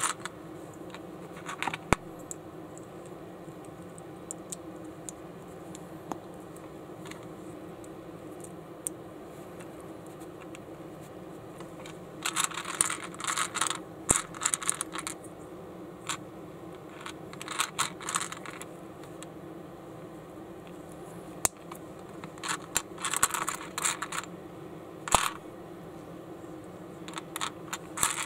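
Small plastic building bricks clicking and rattling as they are picked from a pile on a baseplate and snapped together: a few sharp taps in the first two seconds, then several bursts of rapid clicking through the second half, over a steady low hum.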